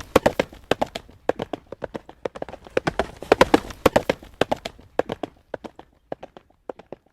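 Horse hooves trotting on a hard road surface: a quick, rhythmic run of sharp clip-clops. From about five seconds in the hoofbeats thin out and grow fainter.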